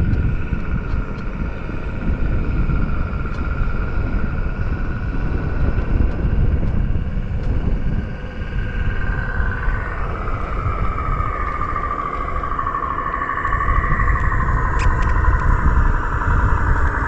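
Synthetic truck-engine sound from the EUC World app's AVAS (18-wheeler Mack truck pack), played through a KingSong KS16X electric unicycle's built-in speaker while riding. It is a steady engine-like drone whose pitch drops about halfway through and then climbs again near the end, over a low rumble.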